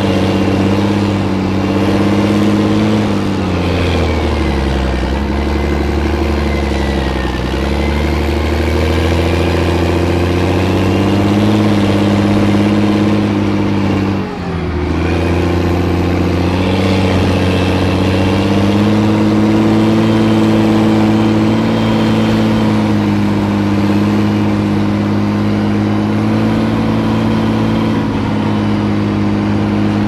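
M113 armoured personnel carrier's engine running under way. The engine note sags and climbs back a few seconds in, drops abruptly for a moment about halfway, then runs steady.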